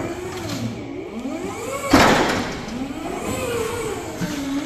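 Electric drive motors of a Genie GS-1930 scissor lift whining as it drives slowly off a trailer, the pitch rising and falling with its speed. A loud clunk comes about two seconds in.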